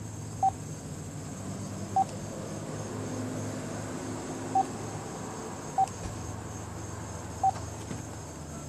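Cordless phone handset keypad beeping as numbers are dialled: five short beeps of the same pitch at uneven intervals, over a low steady hum.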